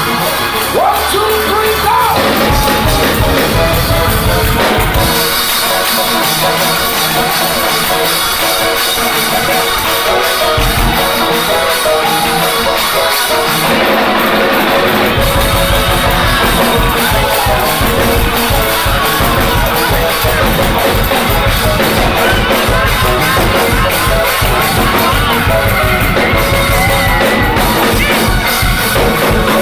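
Live gospel music: a choir singing over a band with a drum kit. The bass and drums drop out about five seconds in and come back in about ten seconds later.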